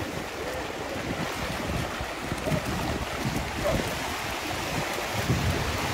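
Small waves washing and splashing in the shallows, with wind rumbling on the microphone.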